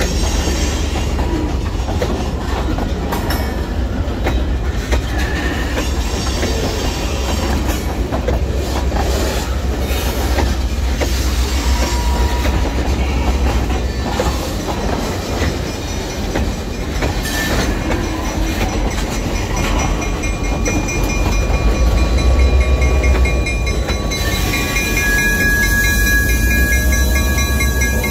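Freight train tank cars rolling past on the rails: a deep rumble with wheels clicking over the rail joints and a few brief wheel squeals. Near the end a steady whine comes in as the EMD GP9R diesel locomotive draws near.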